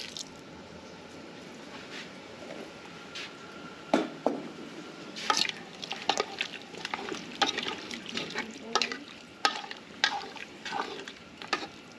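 Chicken stock poured in a thin stream into an aluminium pot of stew, then a metal spoon stirring the stew, with sharp clicks and knocks of the spoon against the pot from about four seconds in.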